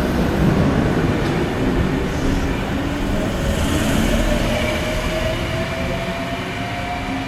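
Sydney Trains electric suburban train running through the station: a continuous rumble and wheel noise, with a whine that rises slowly in pitch from about three seconds in as the sound gradually fades.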